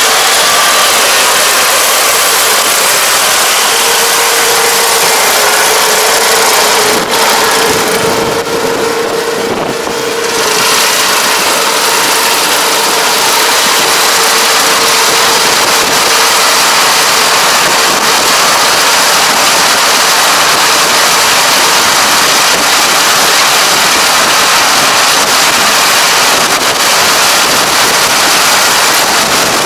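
Kubota ER587 combine harvester running under load as it cuts and threshes standing rice: a loud, steady mechanical din, with a steady whine held for several seconds in the first half.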